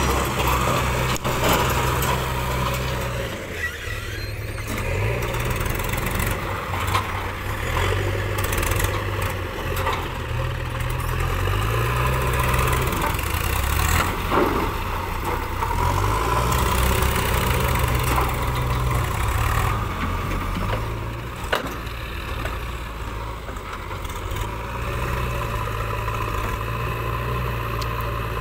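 JCB 3DX backhoe loader's diesel engine running and revving up and down under load as it scoops and loads soil, with a few knocks of the bucket and soil.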